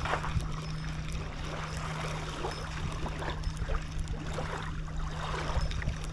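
Water splashing and lapping at the river's edge as a small hooked catfish is brought in, over a steady low hum.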